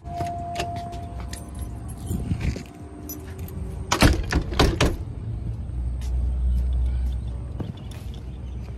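Metal door handle and latch clicking sharply several times, about four seconds in, as a door is worked. A steady low rumble follows.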